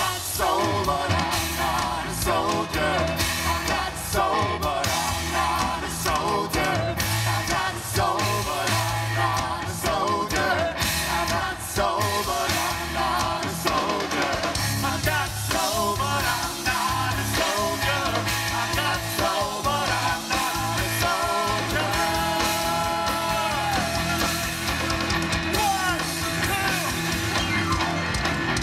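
Live rock band playing loud and steadily, with a singer over the band.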